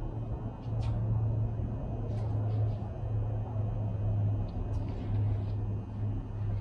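A steady low machine hum, like a shop fan or heater, with a few faint light taps and clicks on top.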